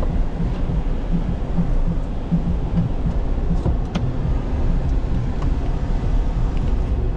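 Vehicle on the move: a steady low engine and road rumble, with no clear changes.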